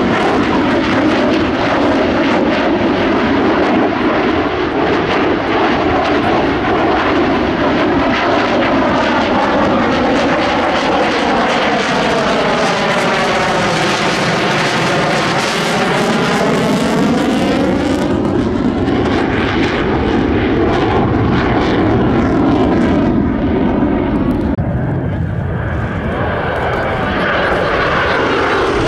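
Chengdu J-10 fighter jets passing overhead: a loud, steady jet roar with a sweeping, phasing tone that drops to its lowest about halfway through and then rises again as the aircraft go by. The highest part of the roar fades near the end.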